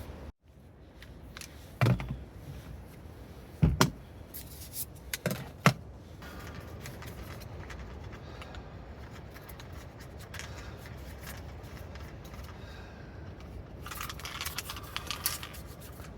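A few sharp knocks in the first six seconds, then a cluster of light metallic jingling and clinking near the end.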